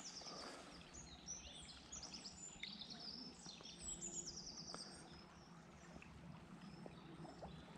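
Faint songbirds singing several quick high trills over the low, steady rush of the river.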